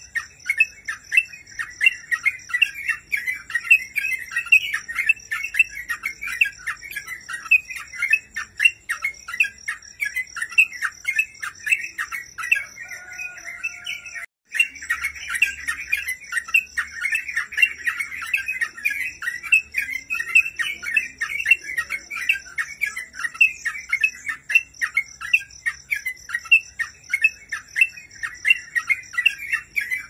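Yellow-vented bulbul (crucukan) singing non-stop in full song: rapid, bubbly chattering phrases run into one another. There is a brief lull about halfway through, where the song drops out for a moment before resuming. A faint steady high tone runs underneath.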